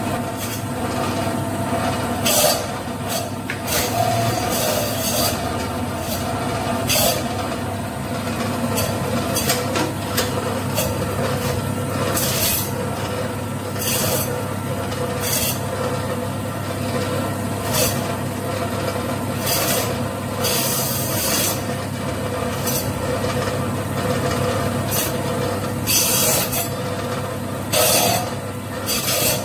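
Electric meat band saw running with a steady motor hum, its blade rasping in repeated short bursts as it cuts whole chickens into pieces.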